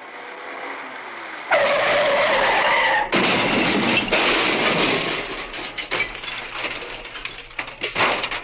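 Car skid and crash sound effect. A rising approach leads into a loud tyre screech about a second and a half in. The screech cuts into a crash with shattering glass, and debris clatters and patters down over several seconds.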